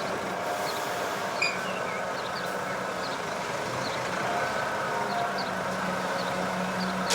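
Steady vehicle engine-like running sound with a low hum, unbroken throughout.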